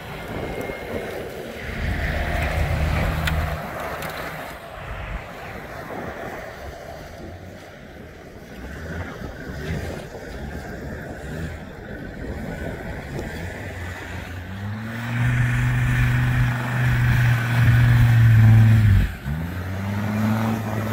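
Land Rover Discovery turbo-diesel engines working hard on a steep dirt incline, with tyres scrabbling on loose soil. The engine is loudest near the end, when the Discovery 2's Td5 five-cylinder pulls hard up the slope. Its revs dip sharply for a moment about two seconds before the end, then rise again.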